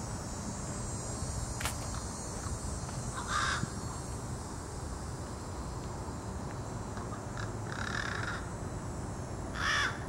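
A crow cawing three times, short harsh calls spaced a few seconds apart, the last near the end, over a steady high-pitched drone of insects.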